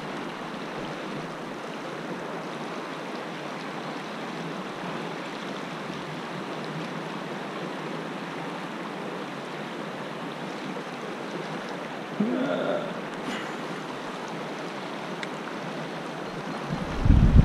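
Shallow mountain river rushing over rocks, a steady hiss of flowing water. About twelve seconds in a short, rising pitched sound rises above it, and just before the end a loud low rumble starts.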